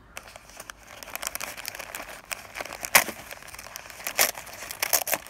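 Tissue paper crinkling and rustling as it is unfolded by hand inside a gift box, with sharper crackles about three seconds in and again a second later.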